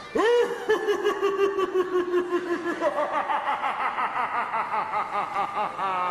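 A long, high-pitched theatrical laugh from a pantomime spirit character. It opens with a sharp rising whoop, then runs on as rapid, even 'ha-ha' pulses that slowly sink in pitch.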